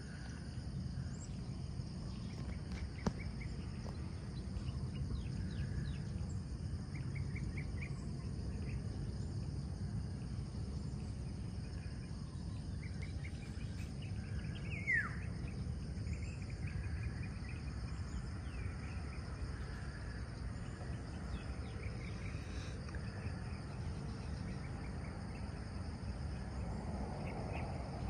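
Dawn ambience: a steady high drone of insects, with scattered short bird chirps and a few downward-sweeping whistled calls, one in the middle and one near the end, over a steady low rumble. A single faint click comes about three seconds in.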